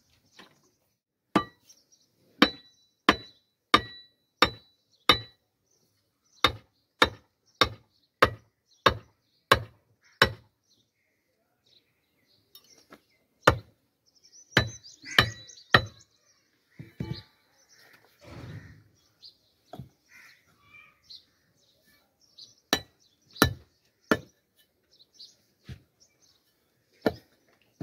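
A wooden tethering peg being pounded into the ground with a heavy metal chopper: sharp knocks of metal on wood in runs of about one to two blows a second, with short pauses. The early blows carry a faint metallic ring, and a brief scraping of soil comes about two-thirds of the way through.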